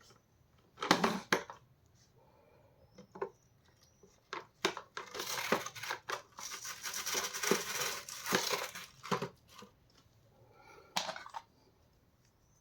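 Hard plastic knocks, clicks and scraping as the brush bar and housing parts of a Vax upright vacuum's floor head are handled and fitted back together: two loud knocks about a second in, scattered clicks, a few seconds of continuous scraping and rubbing in the middle, and a last knock near the end.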